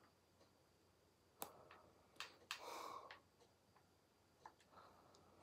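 Near silence: room tone with a few faint clicks and a soft breath about halfway through.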